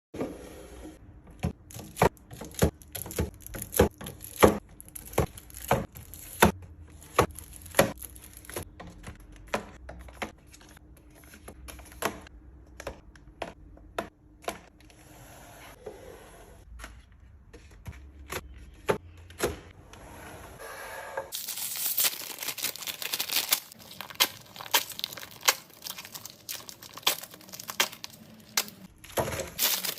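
Restocking sounds: a string of sharp clicks and taps as items are handled and set down. About two-thirds of the way through, this gives way abruptly to dense crinkling and tearing of packaging.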